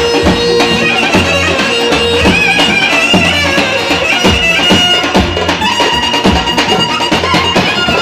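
Loud Roman havası dance music: an ornamented wind-instrument melody over a steady drum beat.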